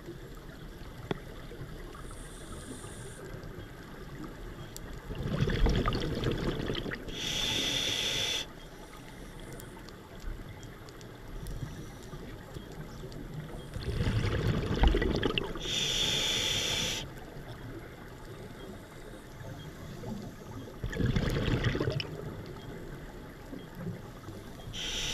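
Scuba diver breathing through a regulator underwater: exhaled air bubbling out for about two seconds, followed by a short steady hiss from the regulator on the inhale. Three breaths come about eight seconds apart.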